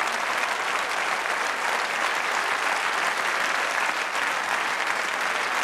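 Audience applauding steadily, a dense patter of many hands clapping, after a comedy punchline.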